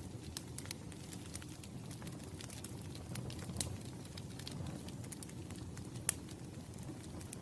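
Campfire crackling: burning wood gives a steady low rumble with frequent small sharp pops, one louder pop about six seconds in.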